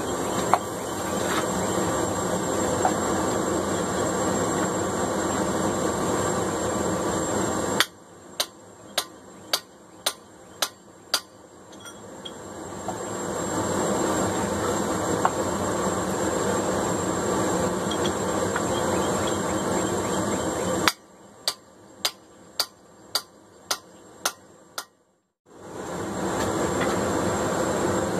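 Gas forge burner running with a steady roar. Twice it gives way to a run of about eight sharp hammer blows on hot mild steel at the anvil, roughly two a second: once about eight seconds in and again in the last third.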